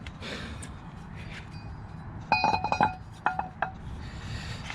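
Hub-centric wheel spacer clinking against the wheel as it is test-fitted onto the studs: a quick cluster of ringing metallic clinks about halfway through, then a few more a second later. The fit is tight.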